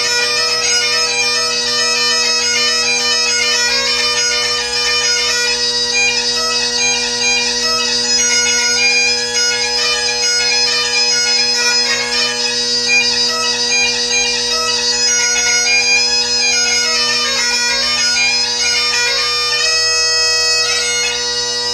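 Great Highland bagpipe played solo: the drones hold a steady low chord beneath a quick, continually moving chanter melody. A high note is held briefly near the end.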